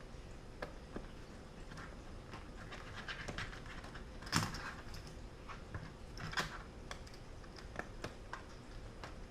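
Faint scraping and small clicks of a screwdriver backing out a hinge screw on a MacBook Pro display, with two sharper clicks about halfway through.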